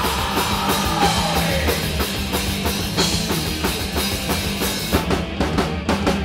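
Live rock band playing an instrumental passage on electric guitars, bass guitar and drum kit, with the drum hits coming faster near the end.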